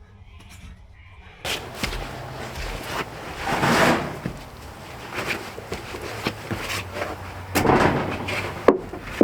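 Wooden knocks, bumps and scraping as timber is handled and moved around, with a sharp knock near the end.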